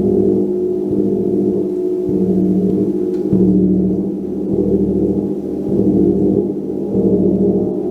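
Gong played continuously with soft, rolling mallet strokes, building a sustained, deep wash of overlapping tones that swells and eases a little more than once a second.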